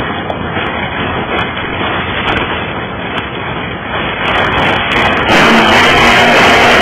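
Radio-controlled race boat running at speed, a steady noisy motor and water sound. About five seconds in, louder background music with guitar comes in over it.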